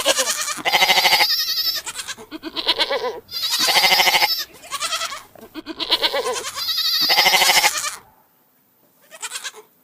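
Goat bleating over and over in loud, quavering calls, several of them long, then one short call near the end.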